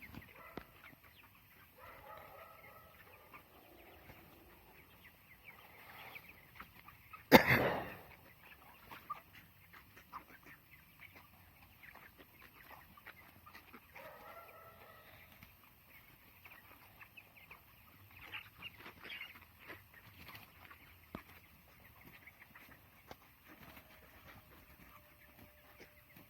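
Flock of broiler chickens clucking and cheeping now and then, over many small taps and clicks; a single loud, sharp knock about seven seconds in.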